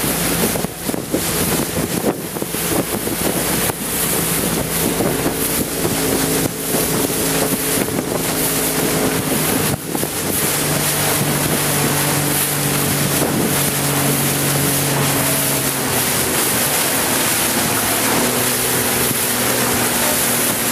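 Motorboat engine running at cruising speed, its steady note shifting slightly in pitch now and then, with water rushing past the hull and wind buffeting the microphone.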